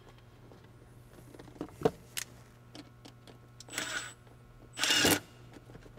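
A few small clicks as a worm-drive hose clamp is handled, then a Milwaukee cordless driver with a nut-driver socket runs in two short spurts, the second louder, tightening a stainless worm-drive clamp on a coolant hose.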